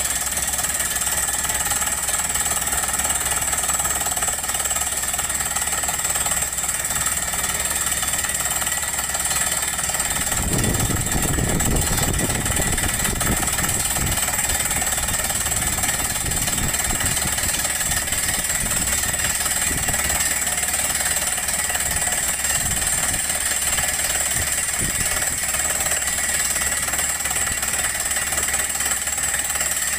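Tata Hitachi crawler blast-hole drill rig drilling into rock, a steady fast percussive rattle. About ten seconds in, a deeper rumble joins for a few seconds.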